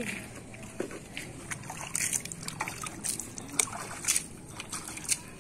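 Water splashing and trickling onto a concrete floor in irregular splashes as hands and feet are rinsed with water from a bucket.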